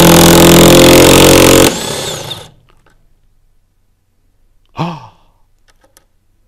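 DeWalt DCF900 18V cordless high-torque 1/2" impact wrench hammering loudly as it drives a 19 mm bolt tight, then running on more quietly for under a second and stopping as the bolt's 10 mm shaft shears off.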